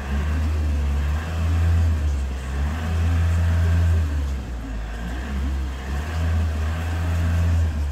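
Mercedes-Benz car's engine running, a steady low hum that swells and dips several times.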